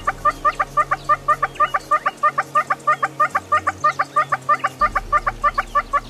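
Hornbill calling: a fast, even series of short, sharp notes, about seven a second.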